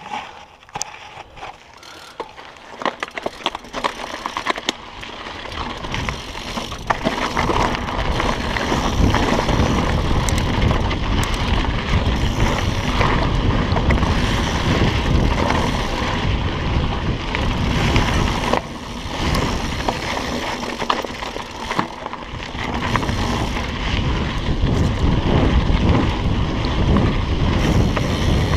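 Mountain bike riding fast down a dirt trail: tyres rolling and the bike clattering over rocks, with sharp knocks in the first few seconds. From about five seconds in, wind buffeting the microphone builds into a heavy, steady rumble as speed rises, dipping briefly past the middle.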